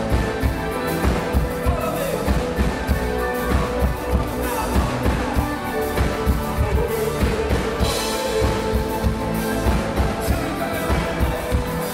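Live synth-pop band playing at full level: drum kit keeping a steady beat under electric guitar and keyboards.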